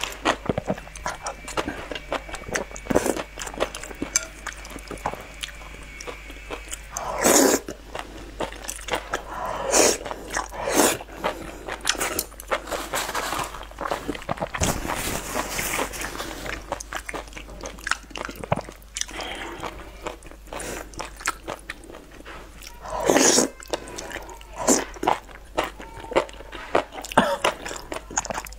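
Close-miked eating: wet chewing and lip smacking on soft, saucy food, irregular and continuous. There are louder bursts about 7 seconds in and again about 23 seconds in as pieces are drawn in from chopsticks.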